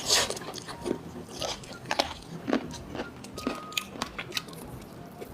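Close-miked eating of crab legs: biting and chewing, with sharp, irregular cracks and crunches several times a second, the loudest right at the start.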